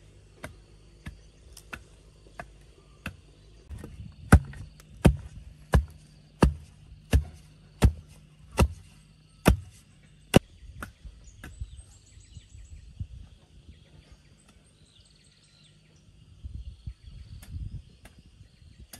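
A wooden stick rammed repeatedly into loose soil around a freshly set wooden post, tamping it firm: a steady run of sharp knocks about every 0.7 s, growing harder about four seconds in and stopping about ten seconds in. Rustling follows near the end.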